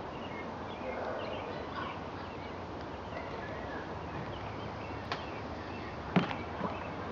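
Back-yard ambience: faint bird chirps over a steady background hum, then a sharp knock about six seconds in.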